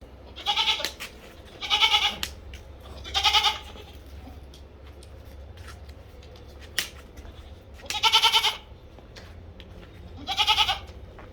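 Barbari goats bleating: five separate wavering calls of about half a second each, three in quick succession near the start and two more in the second half. A single sharp click sounds about seven seconds in.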